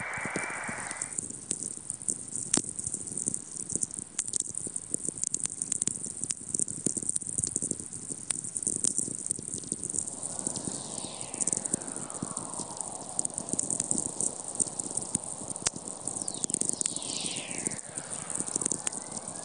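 Natural radio signals from a very-low-frequency receiver in Antarctica, played as sound: a continuous crackle of sferics from distant lightning. Twice, a long whistler falls in pitch from high to low, the second followed by a short rising tone. A band of hiss cuts off about a second in.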